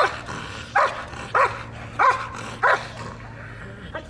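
Protection-trained Belgian malinois barking threateningly at a decoy: five sharp barks about two-thirds of a second apart, then a pause.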